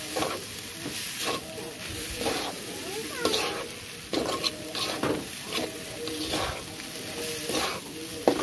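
A spatula scraping and stirring instant noodles in a hot metal pan over a steady sizzle of frying, with strokes about once a second. A sharp knock of the spatula on the pan comes near the end.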